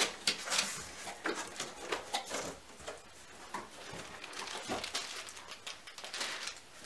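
Cardboard box and its packaging being opened and handled by hand: scattered scrapes, taps and rustles of cardboard flaps and inserts, with a plastic packet rustling near the end.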